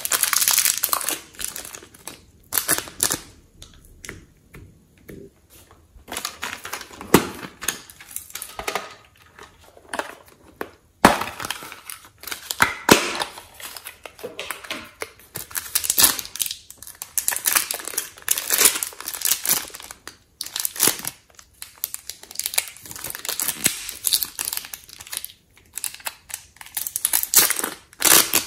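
Thin clear plastic bags crinkling and crackling in irregular bursts as soft modeling clay is squeezed and peeled out of them, with a few sharp clicks.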